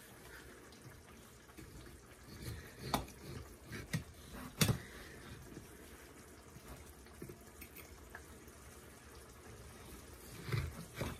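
A chef's knife cutting lengthwise through a cooked spaghetti squash on a ceramic plate, with a few light knocks and clinks of the knife and plate. The loudest knock comes about halfway through, and another pair comes near the end.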